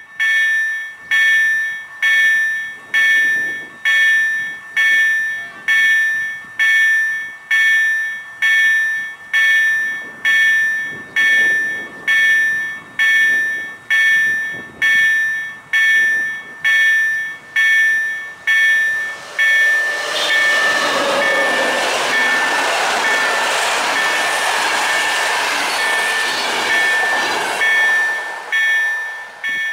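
Level-crossing warning bell ringing steadily, about one stroke a second. About twenty seconds in, the loud rushing of a passing EU07A electric locomotive and its InterCity passenger coaches rises over the bell and holds until near the end.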